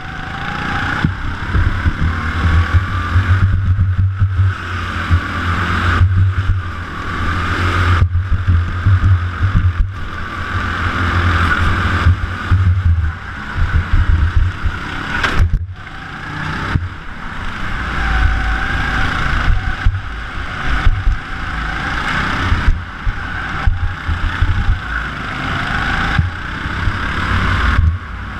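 Rental go-kart engine at racing speed, heard from a camera mounted on the kart, its note swelling under acceleration and dropping away every couple of seconds as the driver lifts for the corners.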